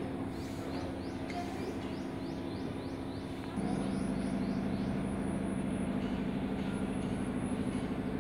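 Steady low mechanical hum, louder from about three and a half seconds in, with a bird repeating a short rising chirp about three times a second over the first five seconds.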